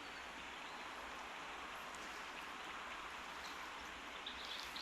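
Steady outdoor background hiss with a few faint bird chirps near the end.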